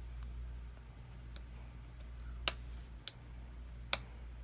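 Small hand tools clicking against a smartphone's internals during a teardown: three sharp clicks in the second half, with a fainter one before them, over a low steady hum.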